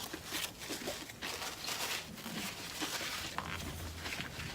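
A person chewing a mouthful of food close to the microphone: soft, irregular wet mouth clicks and small crunches.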